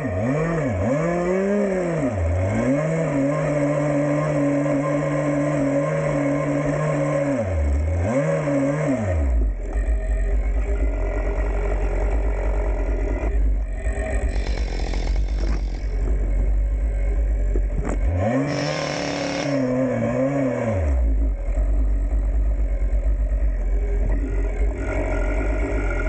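Husqvarna chainsaw at high throttle, eased off and opened up again several times. About nine seconds in it drops to a low idle. It is revved up briefly about eighteen seconds in, then falls back to idle.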